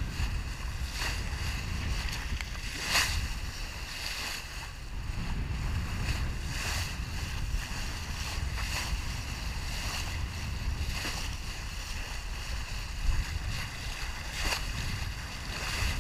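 Wind buffeting the microphone over water rushing along a sailboat's hull, with a short splash every second or two.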